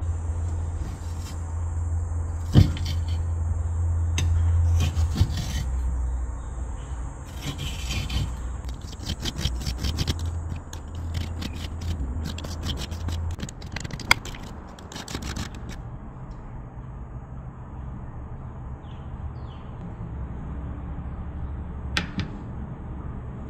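A wooden spoon scraping and scooping ice cream in a ceramic bowl. There is a sharp knock a couple of seconds in, and a fast run of scraping clicks through the middle.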